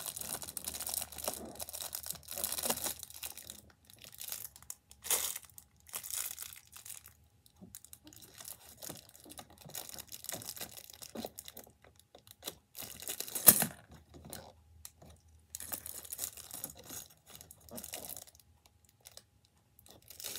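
Cardboard door of an advent calendar being picked at and torn open along its perforations: irregular scratching and tearing with short pauses, and one sharp, loud rip about two-thirds of the way through.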